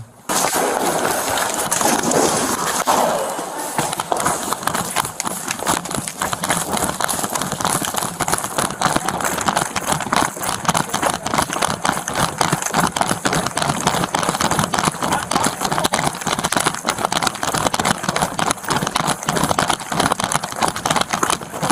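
Fast running footsteps of a police officer in a foot chase, heard through a chest-worn body camera that jolts with every stride, with clothing and gear rubbing against the microphone.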